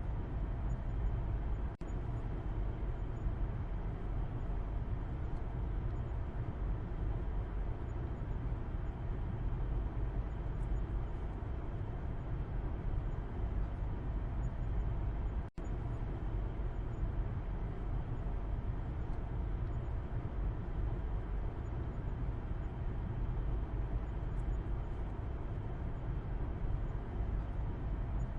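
Steady road and engine noise heard from the back seat of a moving car: an even low rumble with tyre hiss above it. The sound cuts out for an instant twice, about two seconds in and about halfway through.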